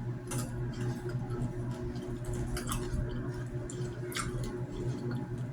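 A few scattered short clicks over a steady low hum.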